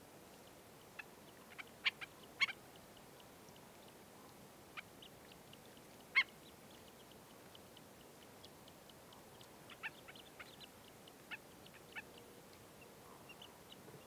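Black-necked stilts giving short, sharp calls again and again, the loudest about two and six seconds in, over faint soft ticking.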